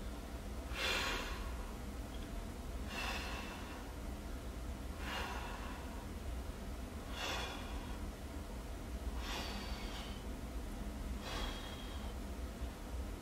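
A man breathing hard while exerting himself through repeated leg lifts. The breaths are sharp and come about every two seconds, six in all.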